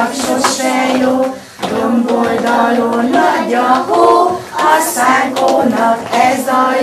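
A group of young children singing a Christmas song together, with a woman's voice singing along; the phrases pause briefly about a second and a half in.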